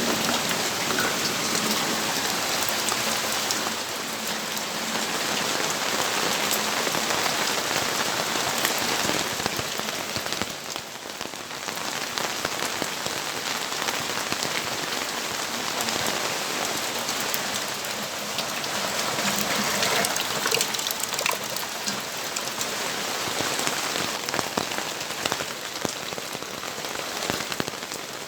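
Steady rainfall, with many individual drops ticking on hard surfaces close to the microphone. It eases briefly about ten seconds in.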